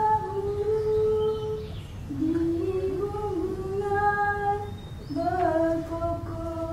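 A woman singing a slow melody alone in long held notes, three phrases with a short break about two seconds in and another about five seconds in.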